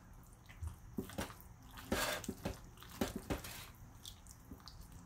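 Basting brush dabbing cooking juices over a slow-cooked spiral ham in a slow cooker, with hands pulling at the meat: faint wet dabbing sounds and scattered soft clicks.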